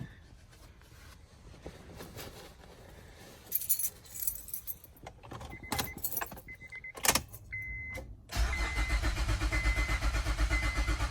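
Keys jingle and a dashboard chime beeps repeatedly. Then, about eight seconds in, the starter of a 2005 Acura MDX cranks the engine in a fast, even rhythm for about three seconds without it catching. This is a cranks-but-won't-start fault that the owner traces to a blown fuse.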